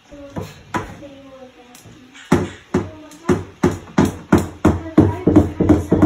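A cockatoo knocking on a closed wooden door, a fast regular series of sharp raps, about three a second, that starts about two seconds in and grows louder.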